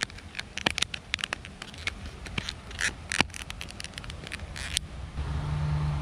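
Plastic lure packaging crinkling and crackling as it is handled and opened, in quick irregular crackles. A steady low hum comes in near the end.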